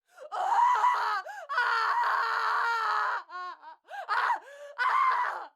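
Screaming: a series of shrill cries, with one long held scream in the middle and shorter wavering cries around it, the last one cutting off suddenly.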